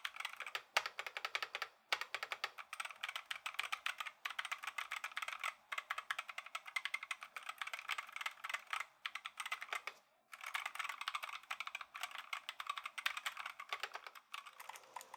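Fast typing on a mechanical keyboard with Gateron optical yellow linear switches, a dense run of light key clicks. It pauses briefly about two, five and ten seconds in.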